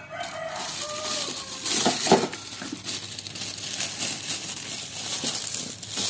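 Plastic gift wrapping crinkling and rustling as a child's hands pull and tear it open, with a run of small sharp crackles and a louder crackle about two seconds in.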